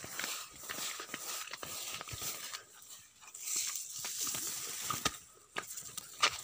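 Irregular rustling and crackling of rice plants brushing against the phone, with a few sharper clicks near the end, over a faint steady high tone.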